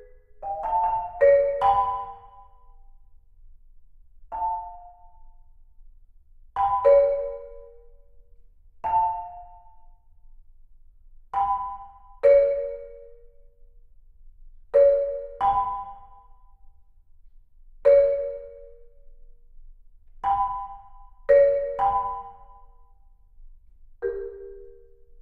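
Solo marimba played with four mallets: slow, sparse chords of two or more notes, each struck and left to ring out briefly before a pause of a second or more. A few chords come in quick pairs, and there is a denser flurry about a second in.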